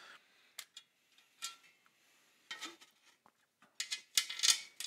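Small screws clicking and ticking against a black metal amplifier chassis panel as they are set into their holes and started by hand: a few scattered clicks, then a quicker, louder run of them near the end.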